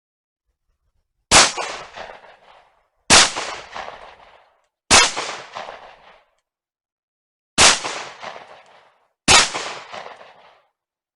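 Beretta M1951 9mm pistol firing five single shots, spaced about two seconds apart with a longer pause before the fourth. Each sharp report trails off in an echo lasting about a second.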